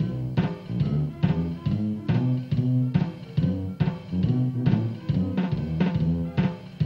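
Instrumental music with a steady beat: a low bass line under regular drum hits.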